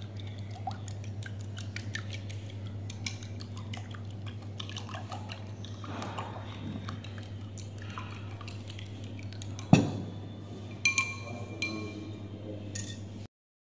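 A spoon clicking quickly and repeatedly against a bowl as raw eggs are beaten. About ten seconds in comes a single louder knock, then a few ringing clinks of the spoon on the bowl.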